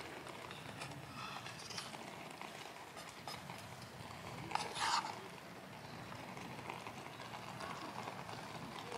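Wooden chopsticks stirring and fluffing freshly cooked rice in an aluminium mess tin, with light clicks of the chopsticks against the tin and one louder scrape about four and a half seconds in.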